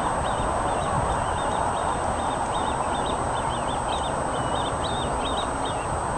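A small songbird singing a continuous run of quick, high chirping and warbling phrases over a steady rushing noise.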